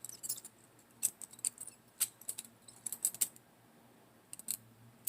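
Balisong (butterfly) comb being flipped through a trick: the handles swing and clack against each other and the comb in irregular sharp clicks and rattles, with a pause of about a second near the end before a last couple of clicks.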